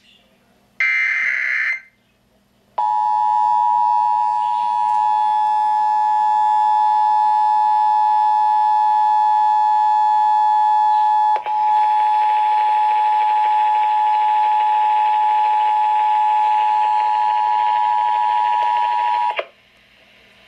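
The last burst of an Emergency Alert System SAME digital header, a short buzzy data screech, comes about a second in. After a short gap, the EAS attention signal follows: the two-tone alarm held steady for about sixteen seconds, with a brief click near the middle, before it cuts off. This sequence marks the start of a required monthly test of the Emergency Alert System.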